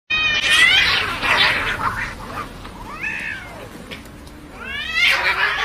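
Cats yowling and caterwauling in a fight. A long, loud yowl opens it, a shorter wail comes about three seconds in, and a rising yowl builds near the end.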